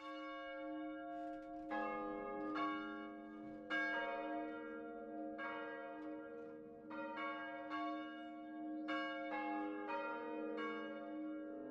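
Church bells ringing, starting suddenly out of silence: several bells struck one after another, a new stroke every second or so, each ringing on under the next.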